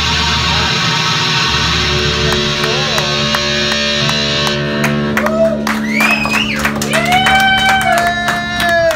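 Live punk rock band playing loud distorted guitar, bass and drums at the end of a song. About halfway through, the steady playing gives way to a held, ringing chord under a run of drum and cymbal hits, with shouts over it, and the band stops just at the end.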